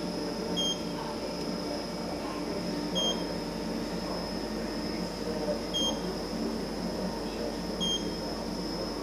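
Four short high beeps, two to three seconds apart, from a Mitutoyo Euro-Apex C544 CNC coordinate measuring machine, each one signalling a touch of its probe stylus on the reference sphere. The beeps sound over a steady hum from the running machine.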